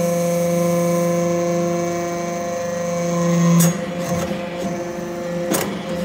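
Hydraulic aluminum-chip briquetting press running: a steady machine hum that grows louder, then stops about three and a half seconds in with a sharp click, followed by a metallic knock near the end.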